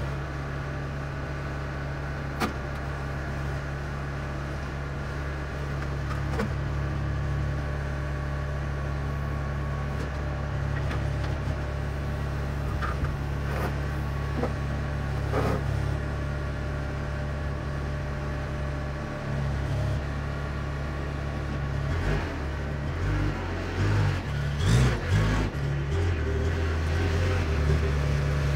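JCB backhoe loader's diesel engine running steadily at a low, even note while it handles a heavy steel frame. About 22 seconds in the engine note starts to change and waver as the machine moves off, with a few sharp knocks around 24 to 25 seconds.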